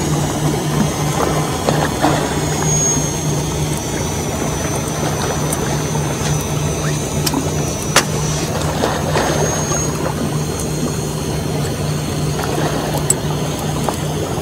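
Steady low motor hum with a thin high whine that wavers in pitch, over a noisy wash and a few sharp clicks.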